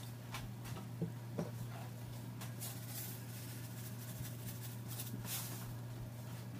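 Chicken pieces and onions sizzling in oil in a frying pan, with scattered crackling pops over a steady low hum.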